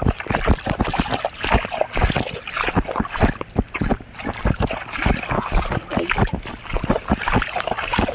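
Quick footsteps splashing through rainwater puddles on wet ground: a dense, irregular run of wet slaps and splatters, several a second.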